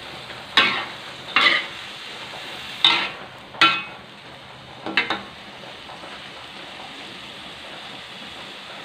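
Metal spatula scraping and knocking against a metal wok in about five sharp strokes while a stir-fry sizzles steadily. The stirring stops about five seconds in, leaving only the sizzle.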